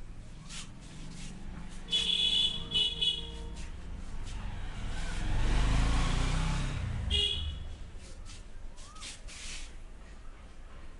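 Street traffic: a high-pitched vehicle horn beeps in a quick series about two seconds in and once more about seven seconds in. Between the horns a passing vehicle swells and fades over a few seconds.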